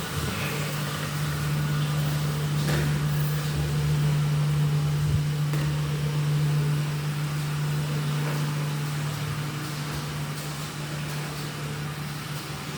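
A steady low mechanical hum over faint background noise, with a faint click a few seconds in.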